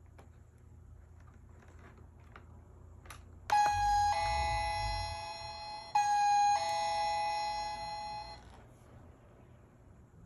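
Toy dollhouse's battery-powered electronic doorbell sounding a two-note ding-dong chime twice in a row, each time a higher note stepping down to a lower one that rings on. A few faint clicks come before it.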